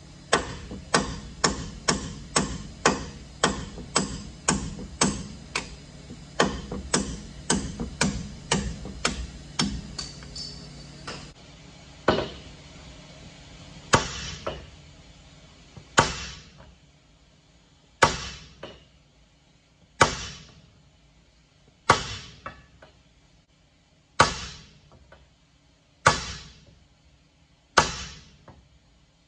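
Hammer blows on a steel drift held against a heavy truck's front-axle king pin, steel on steel with a short ring after each strike. A fast run of about two strikes a second fills the first ten seconds or so, then single heavy blows fall about every two seconds.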